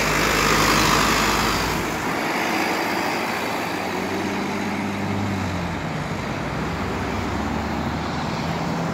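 Road traffic passing close by: tyre and road noise, loudest in the first two seconds, then a dump truck drives past with its engine running, followed by a car.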